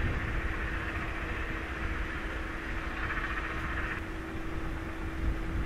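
A steady machine hum at one constant pitch under an even fan-like hiss, with the hiss a little brighter for about a second near the middle.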